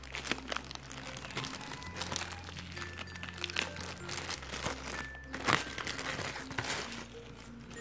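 Clear plastic packaging bag crinkling and crackling in the hands as it is pulled open, in irregular bursts with the sharpest crackle about two-thirds of the way through, over soft background music.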